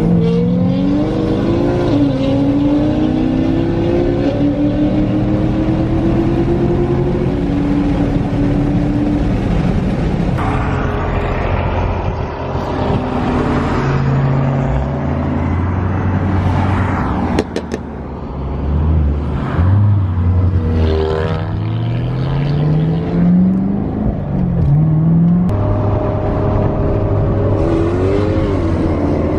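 Several car engines revving and accelerating as cars pass by, their pitch rising and falling throughout. One engine climbs in a long steady run about two-thirds of the way through.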